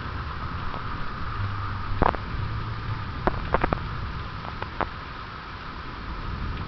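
Steady hiss of heavy rain in a thunderstorm with a low rumble underneath, broken by a few sharp taps about two seconds in and again between three and five seconds.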